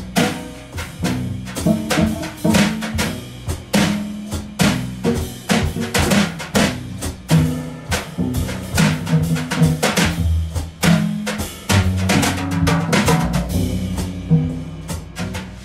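Instrumental music: a drum kit playing a steady beat over a bass line that moves between notes.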